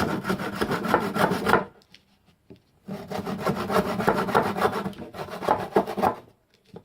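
Hand saw cutting through a wooden mallet head in quick rasping strokes, in two bouts with a pause of about a second between them.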